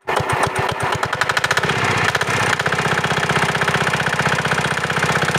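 Small single-cylinder Chinese diesel engine running with an even knock, picking up speed over the first second or two and then holding steady.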